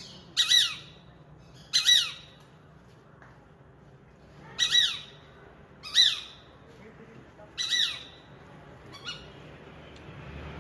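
Peregrine falcon giving harsh, angry calls, each one falling in pitch: about five loud calls at intervals of a second or two, with a fainter one near the end.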